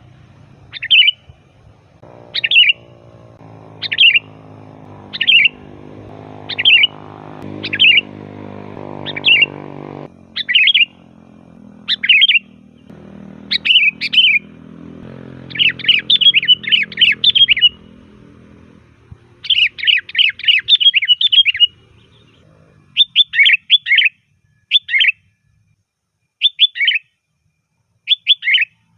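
Sooty-headed bulbul (kutilang) singing loud, short chirping notes, at first about one a second. Partway through they run together into rapid chattering phrases, then thin out again. A faint low hum lies underneath in the first half.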